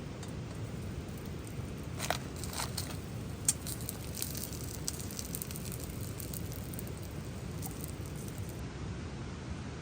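Campfire of wet branches crackling, with a run of sharp pops from about two to five seconds in, over a steady hiss of rain.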